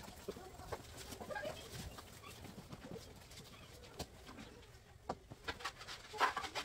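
Kitchen clatter: scattered light clicks and knocks of cookware and utensils as food is handled at the counter and stove, with a sharper knock near the end.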